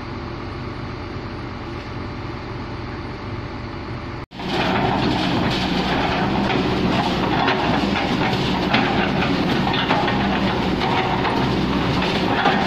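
Kobelco crawler excavator working: its diesel engine runs steadily at first. About four seconds in, after a sudden cut, a louder machine clatter with rapid rattling clicks takes over as the excavator digs under load at close range.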